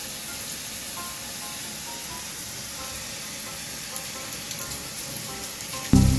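A steady hiss with faint, sparse background music notes. Loud music starts abruptly near the end.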